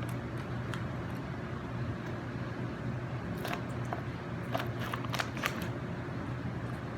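Close-miked eating sounds: a cluster of sharp, crisp crunches and mouth clicks about halfway through, over a steady low hum.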